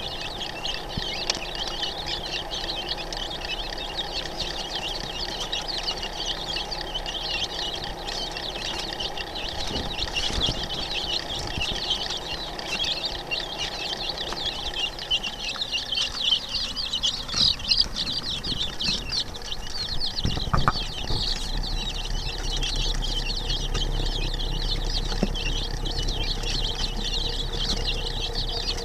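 A brood of young chicks peeping continuously, many high cheeps overlapping. A low hum comes in more strongly about two-thirds of the way through.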